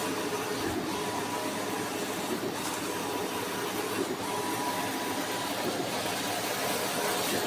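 Epson 9430 large-format dye-sublimation printer running, a steady mechanical whir with a brief dip about every second and a half to two seconds as the print carriage passes.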